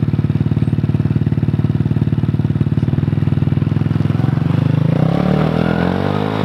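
Mini dirt bike engine idling steadily with a fast pulsing beat, then revved so its pitch rises and falls from about four seconds in: the rider is giving it throttle.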